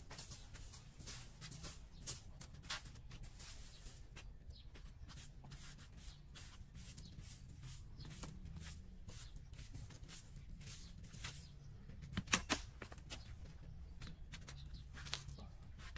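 Plastic broom sweeping a concrete sidewalk: irregular scratchy bristle strokes, with one sharper knock about twelve seconds in.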